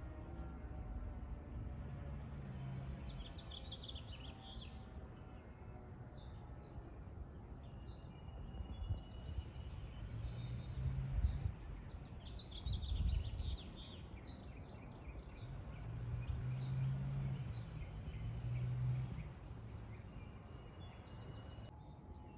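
Outdoor ambience after a fire siren: the siren's tail winds down in pitch and fades in the first second or two, then birds chirp off and on over a low rumble that swells several times. A steady tone begins just before the end.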